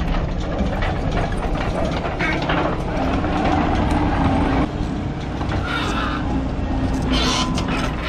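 Case TV450 skid steer's diesel engine running under load, its note rising for a couple of seconds in the middle and then dropping back, with scattered clanks and a brief higher hiss near the end.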